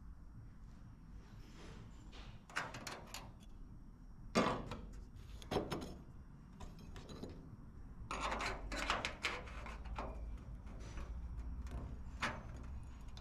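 Scattered knocks and clatter of objects being handled, loudest about four and a half seconds in, with a quick run of knocks around eight to nine seconds in.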